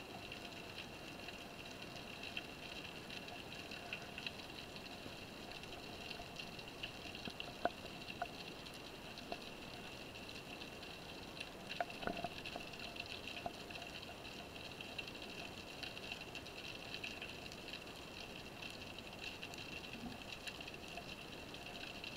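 Underwater ambience picked up by an action camera's microphone beneath the sea: a steady muffled hiss with a faint high whine, and scattered sharp clicks and knocks, the loudest about eight and twelve seconds in.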